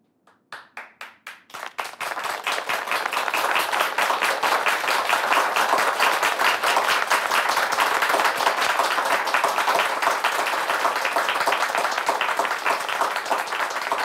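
Audience applause: a few scattered claps begin about half a second in, and within two seconds many hands join into steady applause.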